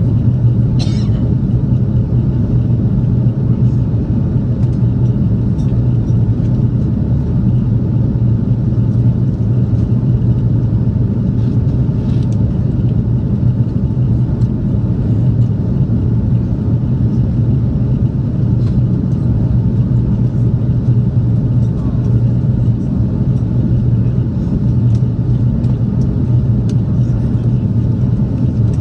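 Steady low rumble of airliner cabin noise, jet engines and rushing airflow heard from a window seat, during the approach to landing.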